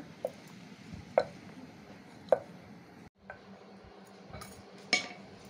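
Sharp wooden knocks and clicks, a few spaced about a second apart and the loudest near the end, as a papad is rolled out with a wooden rolling pin on a round wooden board.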